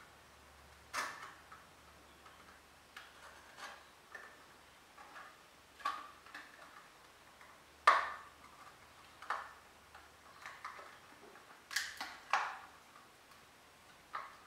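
A razor blade cutting into a paper milk carton while the carton is turned in the hands: irregular small clicks and crackles, the sharpest about eight seconds in.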